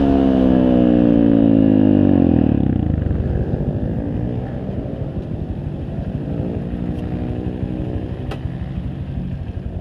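Honda Grom's 125 cc single-cylinder four-stroke engine winding down as the bike rolls off the throttle, its pitch falling over the first two or three seconds. It then settles to a pulsing idle.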